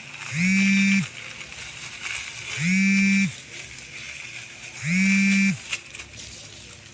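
A loud, low buzzing tone that sounds in short bursts of under a second, about every two seconds. Each burst rises in pitch as it starts and drops as it stops.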